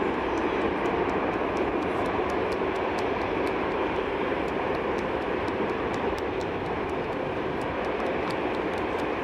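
Jet engines of an Airbus A330 airliner running as it rolls along the runway: a steady, even rumble with no rise or fall.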